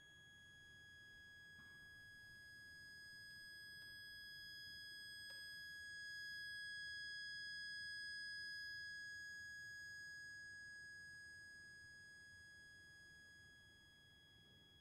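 A soft, high instrumental note held steadily, swelling slowly to a peak and fading away again near the end. A faint click sounds about five seconds in.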